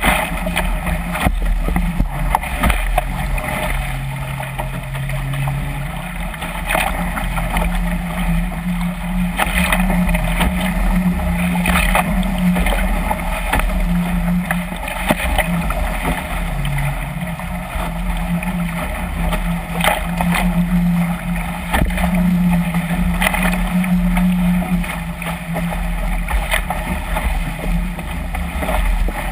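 Water rushing and spraying along the hull of a Chrysler Musketeer catamaran sailing fast through three-foot waves, heard close to the hull. Sharp slaps come irregularly as the hull hits waves, over a low rumble of wind on the microphone.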